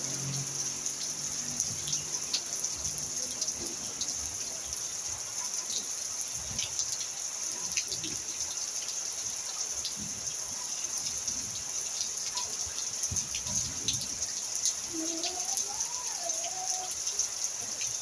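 Steady rain falling, with a constant hiss and many separate drops ticking and splashing on wet surfaces.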